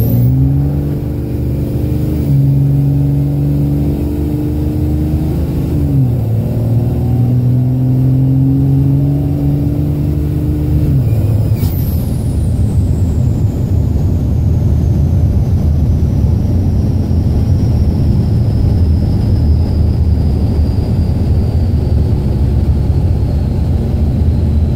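Cab interior sound of a Dodge Ram's 24-valve Cummins 5.9 L inline-six turbodiesel pulling with a high turbo whistle. The engine pitch drops about two and six seconds in as the freshly rebuilt 47RE automatic upshifts, then climbs again. About eleven seconds in the engine note falls away and the turbo whine winds slowly down, leaving a steady rumble and road noise.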